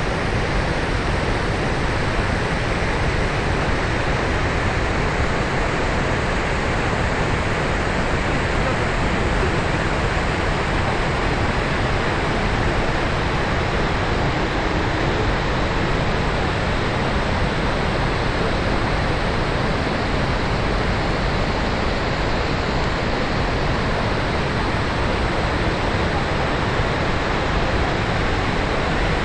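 Steady roar of the Rhine Falls' water, an even rushing noise with no breaks.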